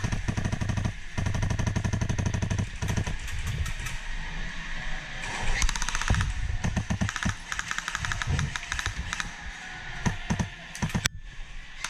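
Rapid strings of airsoft gunfire from an HPA (compressed-air) rifle, shots coming many per second with short pauses between strings.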